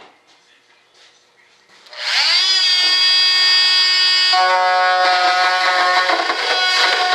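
Small high-speed power tool starts about two seconds in, its whine rising to a steady pitch, then turns grittier as it cuts into composite material.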